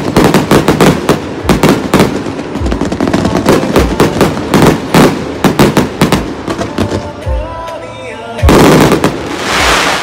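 Fireworks: a rapid, dense string of bangs and crackles from bursting shells, thinning out after about seven seconds. A loud rushing hiss of sparks follows about eight and a half seconds in.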